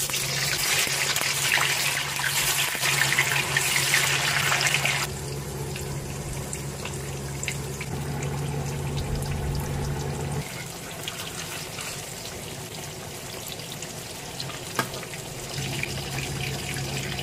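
Tofu slices deep-frying in a wok of hot oil. There is a loud, dense sizzle for about the first five seconds as they go in, then a softer, steady crackling sizzle as they fry golden.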